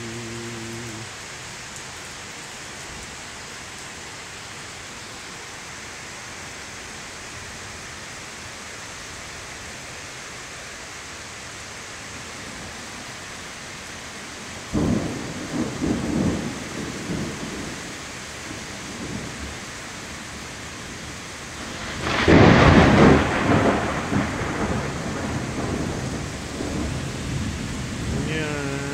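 Heavy rain falling steadily, with two claps of thunder. The first comes suddenly about fifteen seconds in and rumbles away over a few seconds. The second, louder one comes about seven seconds later and keeps rumbling.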